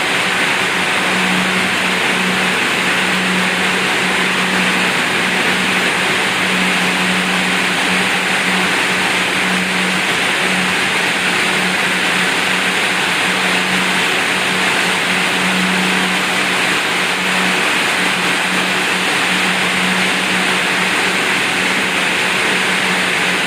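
A machine running steadily with a loud whirring hiss, under a low hum that keeps cutting out and coming back every second or two.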